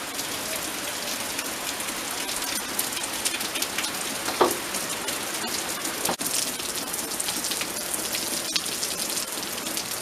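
Steady rain falling, with many separate drops ticking on surfaces. A brief falling squeak about four and a half seconds in.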